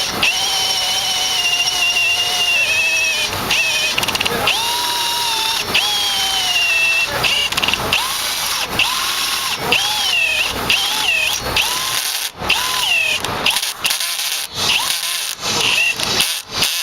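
Electric drill boring through a steel truck chassis frame, its motor whine sagging in pitch as the bit bites. It runs in longer stretches at first, then in shorter stop-start bursts.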